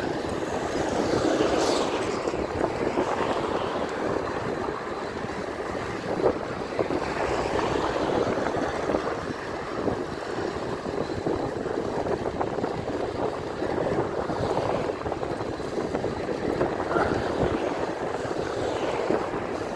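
Wind rushing over the microphone of a handlebar-mounted camera on a moving e-bike, mixed with road noise: a steady, uneven rushing with no breaks.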